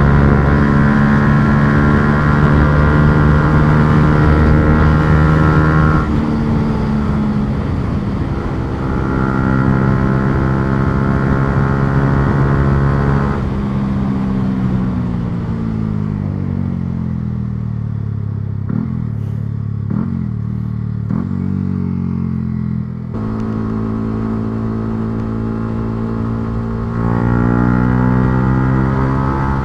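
Yamaha R125's 125 cc single-cylinder engine under way: held at high revs, a brief break about six seconds in, then high again. It winds down through a long falling stretch with a few short blips of revs, holds steadier lower revs, and rises again near the end as it accelerates.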